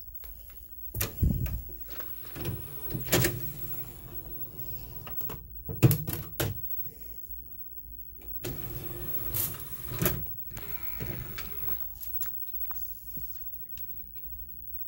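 A LaserDisc being handled and loaded into a LaserDisc player: a series of clicks and clunks, the loudest about six seconds in, with the player's motorised disc tray whirring between them.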